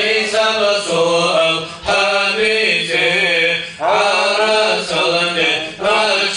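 A man chants an Islamic supplication (du'a) into a microphone in long melodic phrases, pausing briefly for breath about every two seconds, with a steady low hum beneath.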